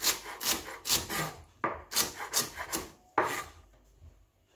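Chef's knife chopping green pea pods on a wooden cutting board, about two cuts a second, with each stroke knocking the blade against the board; the chopping stops about three and a half seconds in.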